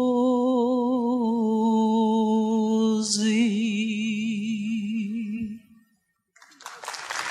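Female voice holding the song's last long note over piano, its vibrato widening. About three seconds in, a piano chord sounds and the note drops slightly, then it dies away at about five and a half seconds. After a short silence, audience applause starts near the end.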